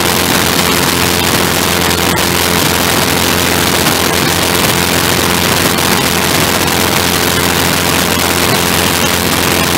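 Engine of a small wing-in-ground-effect craft running at a steady pitch while under way, under a loud steady hiss of wind rushing past the open cockpit.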